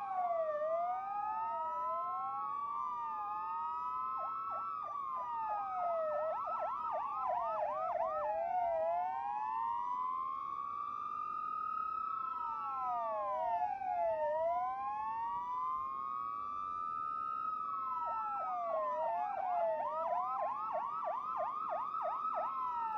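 Several police sirens sounding together, their wails overlapping as they rise and fall slowly. Bursts of fast yelp cycles cut in a few times.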